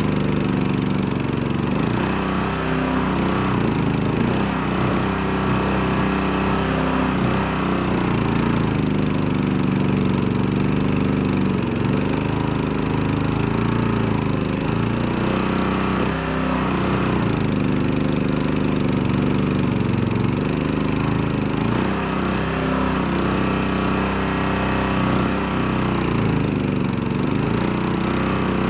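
Mud Buddy mud motor's small gasoline engine running steadily, driving the canoe through shallow, weedy water, its pitch dipping and recovering slightly now and then.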